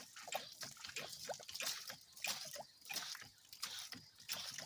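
Water pumped up a newly driven 2-inch sand-point well, splashing and sputtering irregularly out of the discharge with air mixed in.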